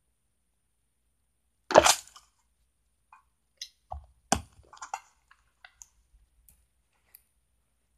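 Hands handling things close to the microphone: a short, loud crackle about two seconds in, then a scatter of light clicks, taps and rustles.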